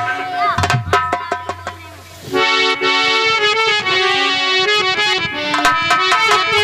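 Harmonium and hand drum playing an instrumental interlude of folk devotional music. For the first two seconds there are drum strikes under a thin reed melody; a little over two seconds in, the harmonium comes in loud with sustained chords.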